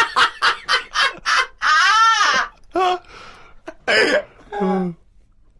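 A man laughing hard: a rapid run of short breathy bursts, then a long high squeal that rises and falls, then a few shorter bursts that die away.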